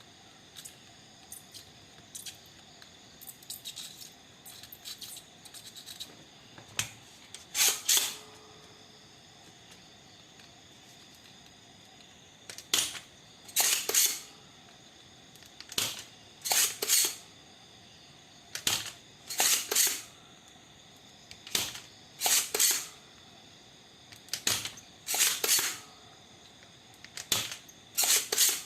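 Spring-loaded desoldering pump (solder sucker) being cocked and fired again and again, a sharp click followed by a louder snap, about every three seconds: solder is being sucked off the amplifier IC's pins one after another.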